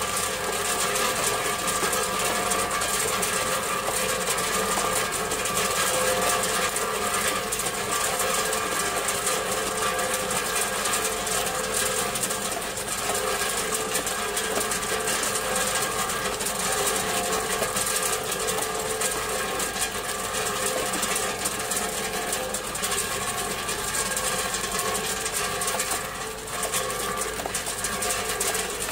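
Tube ice pouring from a 3-ton-per-day tube ice machine's outlet into a plastic basin during harvest: a steady, dense clatter of ice tubes over the machine's running hum, easing briefly near the end.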